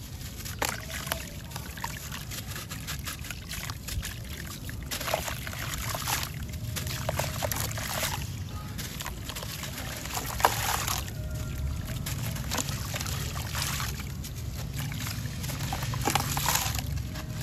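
A wet sand-cement block being squeezed and crumbled by hand over a tub of muddy water: gritty crumbs and sand dribble and splash into the water, which sloshes as the block is dipped. There is one sharper splash about ten seconds in.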